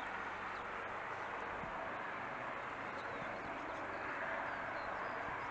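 AgustaWestland AW149 helicopter running steadily on the ground, its twin turboshaft engines and main rotor turning, giving an even rushing noise with a faint low hum beneath.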